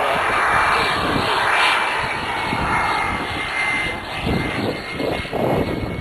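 Model turbine jet engine of a radio-controlled A-10 in flight: a broad rushing roar with a thin, steady high-pitched whine, slowly getting fainter.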